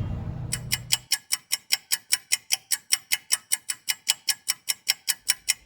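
Rapid, perfectly even ticking, about six ticks a second, like a fast clock-ticking sound effect, starting about half a second in after a low sound fades out.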